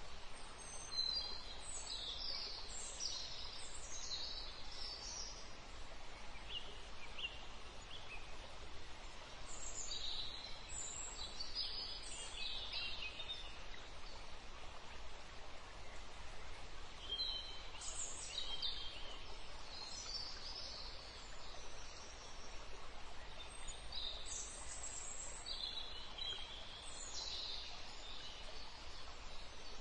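Birds calling over a steady background hiss, in four spells of quick high chirps, each a few seconds long, coming roughly every seven or eight seconds.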